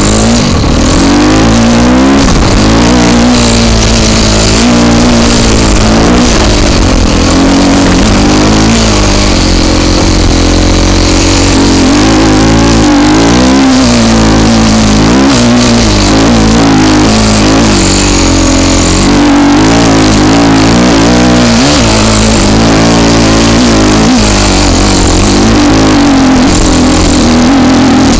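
Husqvarna TE250 enduro motorcycle's single-cylinder engine being ridden, its revs rising and falling over and over with throttle and gear changes. Heard loud and close from a camera mounted on the bike.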